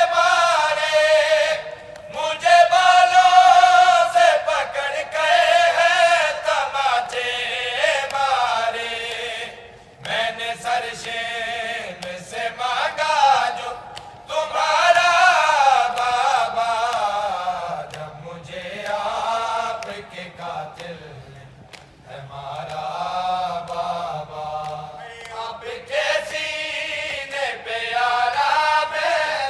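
Men's voices chanting a noha, a Shia lament in Urdu, together and without instruments, in long rising and falling phrases with brief breaks between them.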